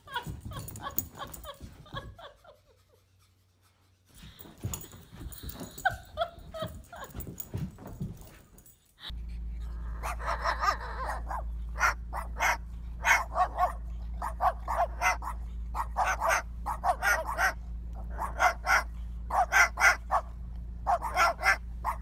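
A car's low, steady idling hum with short, sharp barks repeating about once a second over it. The barks come as a cockatoo in the car faces a small dog outside. Before that, for about nine seconds, there are softer mixed animal sounds with a brief near-silent pause.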